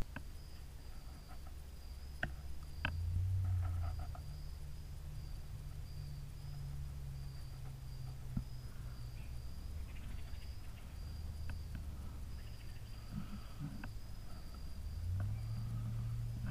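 Insects trilling steadily in a high, thin, continuous buzz, over a low rumble that swells about three seconds in and again near the end, with a few faint clicks.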